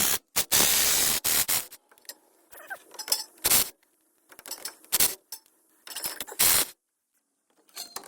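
Socket wrench on a 15 mm socket and long extension working out the CV axle-to-differential bolts, in several short bursts with pauses between.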